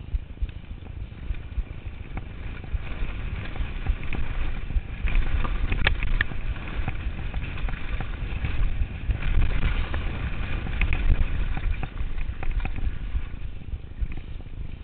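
Downhill mountain bike (Turner DHR) riding fast over a rough dirt trail, heard from a chest-mounted camera: steady wind rumble on the microphone with many knocks and rattles from the bike over bumps. It gets busier and louder about four seconds in and eases off near the end.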